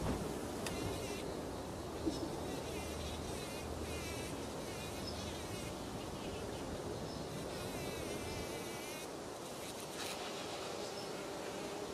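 A bumblebee buzzing with a steady low hum as it forages in an open rose flower.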